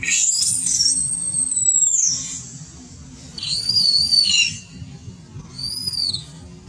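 Baby long-tailed macaque giving high-pitched, whistle-like squealing cries, three times: one long cry, then two shorter arched ones.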